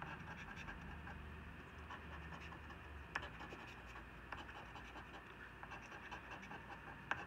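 A coin scraping the latex coating off a scratch-off lottery ticket: faint, quick scratching strokes, with a sharper click about three seconds in.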